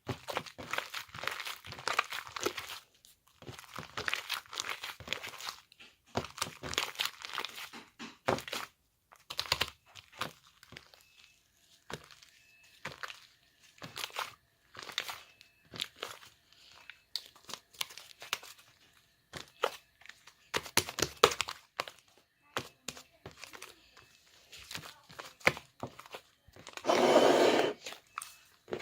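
Homemade clay slime being worked by hand: irregular runs of crackling, crunching sounds and short clicks, with one longer, louder squish near the end.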